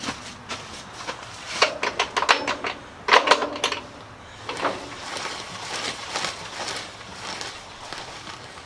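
Work on a tractor wheel rim: two quick runs of sharp clicks and knocks about one and a half and three seconds in, then softer scattered knocks.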